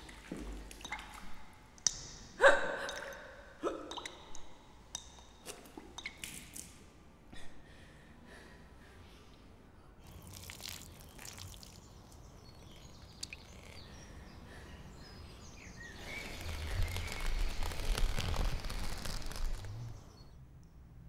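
A person hiccuping, a run of short separate hiccups over the first several seconds, the loudest about two and a half seconds in. Near the end comes a louder stretch of rushing noise that cuts off suddenly.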